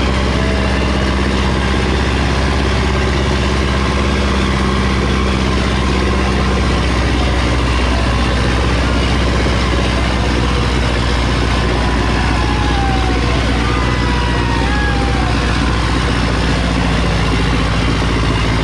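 Sonalika DI 750 III tractor's diesel engine running steadily under heavy load, dragging two disc harrows through loose soil. The engine note holds an even, low pitch throughout, working hard enough to pour out black smoke.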